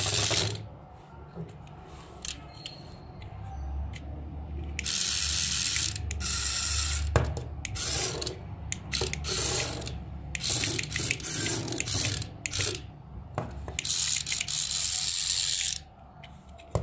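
Remote-control praying mantis toy's small electric gear motor whirring in several bursts of a second or two as its legs walk, with sharp plastic clicks between bursts.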